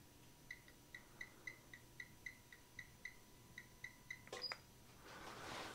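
Faint steady 1 kHz test tone from an amplifier dyno run on a car amplifier into a 1-ohm load, with a short electronic beep repeating about four times a second. A sharp click about four and a half seconds in, where the tone stops.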